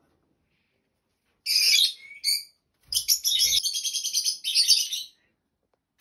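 Small pet parrot calling: a few loud, high-pitched chirps about a second and a half in, then a rapid run of shrill screeching calls for about two seconds.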